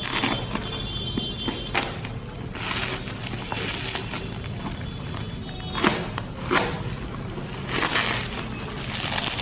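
Plastic courier mailer crinkling and tearing as it is pulled open by hand, with bubble wrap rustling inside, in irregular bursts about a second apart. Music plays faintly underneath.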